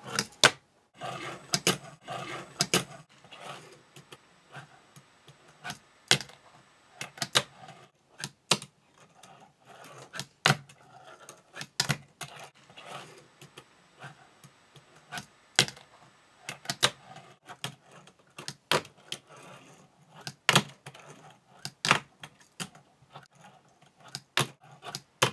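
Fingerboard clacking on a wooden tabletop: irregular sharp clacks of the small deck and wheels popping off and landing, often in quick pairs.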